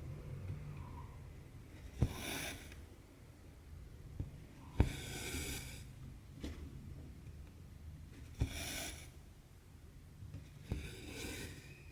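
Needle and cotton thread being worked through 18-count Aida cross-stitch fabric: a sharp tick as the needle punches through, then a rasping swish as the thread is drawn through the holes. This happens four times, about every two and a half to three and a half seconds, with a few fainter ticks between.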